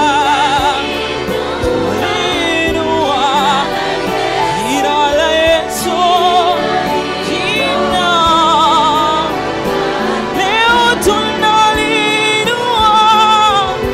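Live gospel worship music: singing with a strong, wide vibrato over steady instrumental accompaniment.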